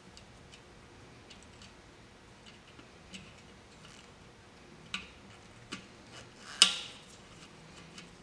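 Scattered small clicks and light taps of hand work on electrical wiring and terminals, with a few louder clicks in the second half and one sharp click about two-thirds of the way through.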